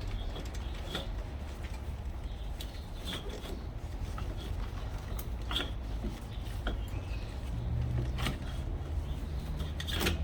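Scattered light knocks and clicks of an ignition coil pack being lifted off an inline-six engine and worked out past flexible hoses and cables, over a steady low hum.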